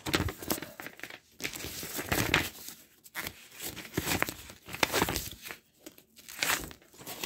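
Paper pamphlet pages that are stuck together being peeled apart and handled: crinkling and light tearing in irregular bursts with short pauses between.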